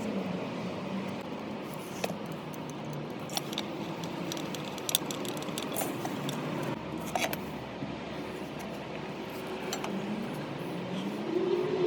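Small metal parts and tools clinking now and then over a steady motor hum whose pitch rises near the end.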